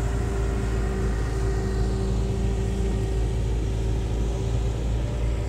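Hitachi Zaxis 210 LC excavator's diesel engine running steadily as the machine works its stump rake, with a steady tone held over the engine drone.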